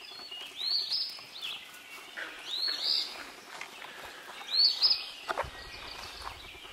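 A songbird singing the same short phrase of high, arching notes about every two seconds, with a faint dawn chorus behind it. A soft knock comes once a little past halfway.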